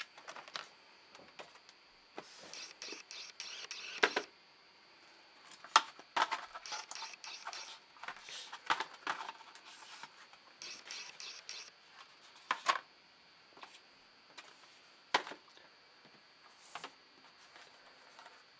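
Cardboard and plastic product boxes being handled and slid across a wooden desk: an irregular run of scrapes, taps and knocks, with sharper knocks about 4, 6, 12 and 15 seconds in.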